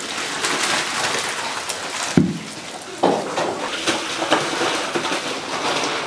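Braised pork belly and its sauce poured from a steel pot into a steel basin, a steady splashing of liquid and meat. There is a heavy thump about two seconds in and a sharper knock about a second later.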